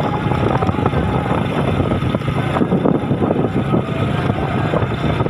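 Vehicle engine running steadily, with wind noise on the microphone.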